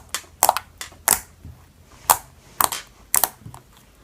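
Glossy slime clicking and popping as it is squeezed and worked in the hands, in sharp, irregular clicks about two a second.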